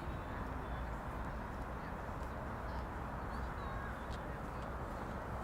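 Steady outdoor background noise of a riverside park walk, with a low rumble underneath and a few faint, short bird chirps near the middle.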